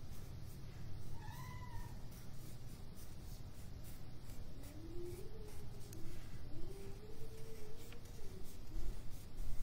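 Pencil drawing strokes on paper, with a few soft pitched sounds that glide up and down: a short one about a second in and longer, wavering ones through the middle.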